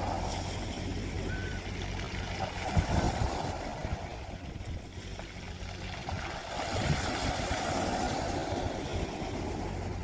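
Water rushing steadily, swelling louder about three times, like waves washing in, over a steady low hum.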